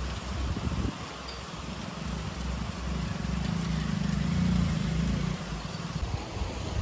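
Steady rain falling on wet ground, with a low engine drone under it that swells from about three seconds in and eases off near the end.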